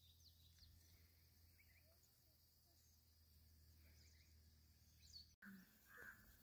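Near silence: faint scattered bird chirps over a low steady hum, broken by a brief dropout about five seconds in, then a crow caws once near the end.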